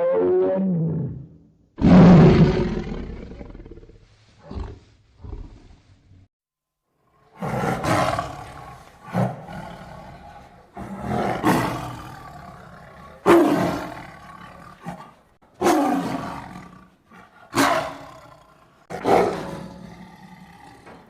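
Tiger roar sound effects made for the extinct Ngandong tiger. A falling call comes first, then the loudest roar about two seconds in, then two short growls. After a brief gap comes a run of roars about every two seconds, each starting sharply and fading away.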